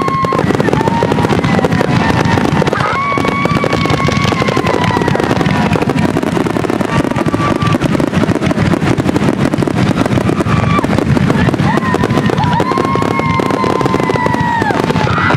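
Fireworks finale: a dense, continuous barrage of bangs and crackling. Long, steady, high whistle-like tones sound over it several times.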